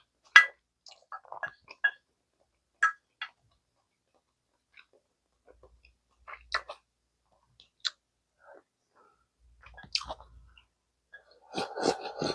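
Close-miked eating sounds: chewing, with sharp wet mouth clicks and smacks spaced irregularly, and a denser run of chewing noise near the end. The food is gamjatang, a Korean pork-bone stew with tender meat.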